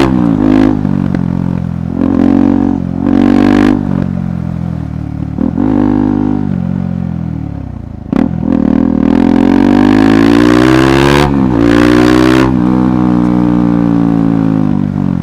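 KTM 390 Adventure's single-cylinder motorcycle engine working under changing throttle. Its pitch climbs and drops again and again as the rider opens and closes the throttle, with a brief cut and a sharp pickup about eight seconds in, then steadier running.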